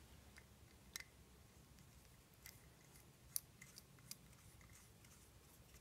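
Faint, scattered small metallic clicks of Torx screws being set and turned by hand into a transmission front pump body: one about a second in, then a few more close together a little later.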